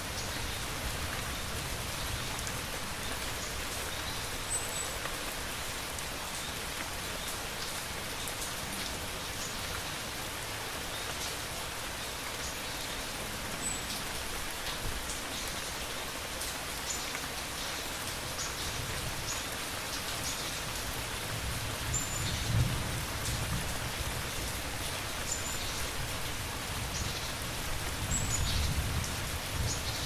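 Steady rain falling, with scattered individual drops ticking. Low rolls of thunder swell about three-quarters of the way through and again near the end.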